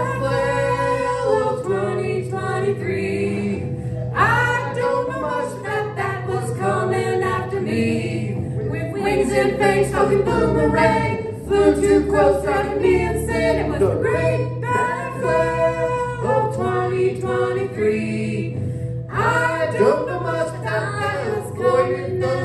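Live song: singing voices over guitar and keyboard accompaniment, with steady low notes underneath.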